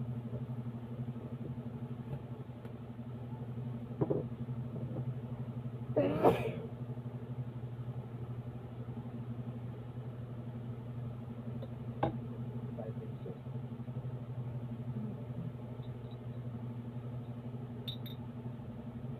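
Steady low hum throughout, with a few light knocks and a brief crinkle of plastic wrapping about six seconds in as sewing machine parts are unwrapped and handled.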